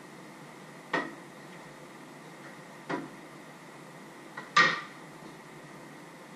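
Three sharp knocks and clatters of kitchen items being handled at the counter: one about a second in, one near three seconds, and the loudest a little past four and a half seconds, just after a small tap.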